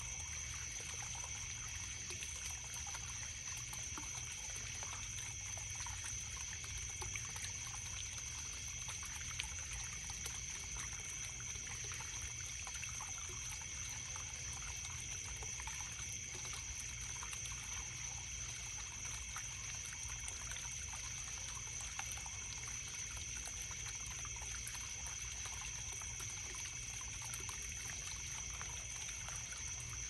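A stream trickling, with a steady chorus of crickets trilling continuously and unchanging throughout.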